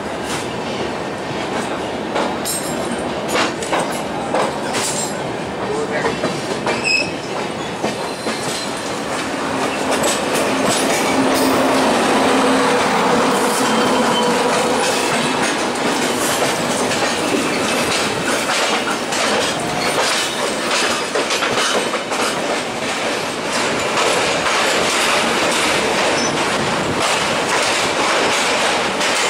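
Indian Railways Rajdhani express coaches running out of a station, heard from the coach doorway: steady rail noise with the wheels clacking over rail joints and points and some flange squeal. It gets louder about ten seconds in as the train runs close alongside another train on the next track, with a low steady tone for several seconds around the middle.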